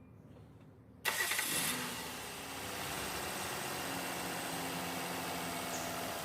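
Kia Carnival engine, fitted with a new ignition coil and spark plugs, starting about a second in and catching at once, then settling into a steady idle.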